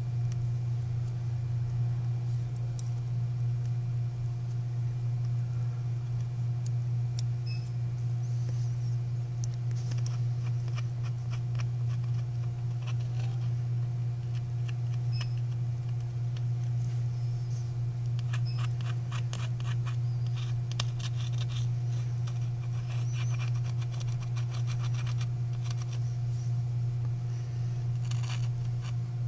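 Steady low hum, with faint scratching and ticking of metal tweezers working at the cracked camera lens cover of a Samsung Galaxy S7, in quick runs about ten seconds in and again from about eighteen seconds to near the end.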